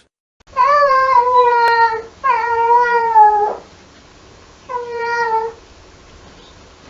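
AI-generated cat meowing: three drawn-out meows, each sliding slightly down in pitch, the second cutting off abruptly. A faint hiss follows.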